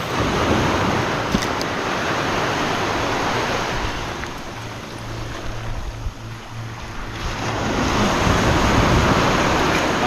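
Small waves washing onto a rocky shore, with wind buffeting the microphone. The rush swells twice, dipping for a few seconds in the middle.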